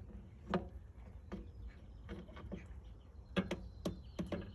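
A wooden pole knocking against parts inside a car's engine bay: a series of sharp, irregular taps, one loud knock about half a second in and a quick cluster of knocks near the end.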